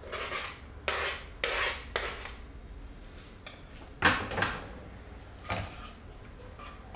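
Chopped onion being scraped by hand off a plastic cutting board into a non-stick frying pan, four rough scrapes in the first two seconds. Then a loud knock about four seconds in and a lighter one a second and a half later as the board and pan are handled.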